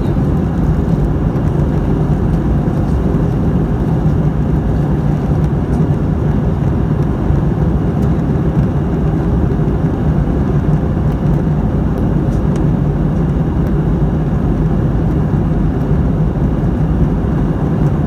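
Steady cabin noise of an Airbus A320neo with Pratt & Whitney PW1100G geared turbofan engines: an even roar of engine and airflow over a low hum, unchanging in level.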